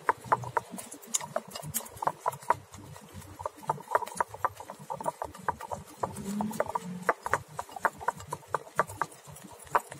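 Balloon whisk beaten fast by hand in a ceramic bowl, its wires clicking and tapping against the bowl several times a second in an uneven rhythm, as instant coffee, sugar and hot water are whipped for dalgona coffee.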